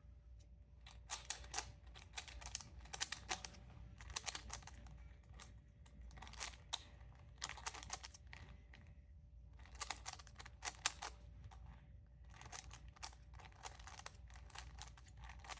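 Speed Rubik's cube being turned by hand: bursts of quick plastic clicks as the layers snap round, with short pauses between sequences of turns.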